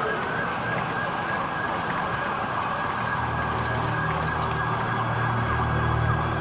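Emergency vehicle siren wailing, held at one steady high pitch, over street noise. A low drone comes in about halfway through.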